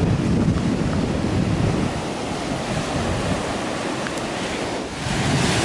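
Surf breaking on a sandy beach, with wind gusting on the microphone as a low rumble.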